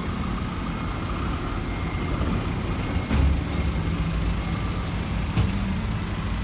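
Steady low rumble of a rear-loader refuse truck's diesel engine mixed with a van driving off, with one loud thump about three seconds in and a smaller knock a couple of seconds later.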